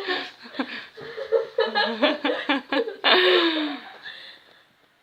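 Girls laughing in quick, choppy bursts, rising to a loud high peak about three seconds in that falls in pitch, then fading out.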